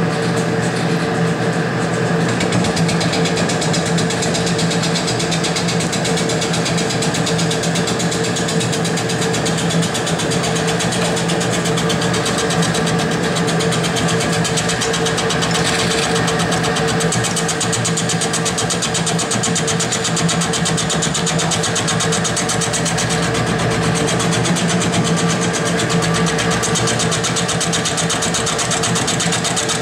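ShopFox M1018 combo mill-lathe running steadily with its spindle at about 400 RPM, a fly cutter facing a cast aluminum box, a constant mechanical hum with fine rapid ticking.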